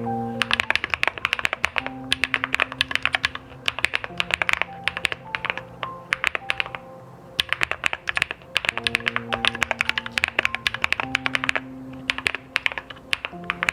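Fast typing on a mechanical keyboard fitted with custom keycaps: rapid runs of key clicks broken by short pauses, over background music of held notes.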